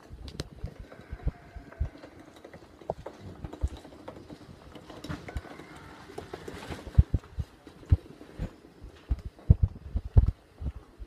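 Footsteps of someone walking along a paved path, heard as irregular low thuds on a handheld microphone, coming faster and heavier near the end.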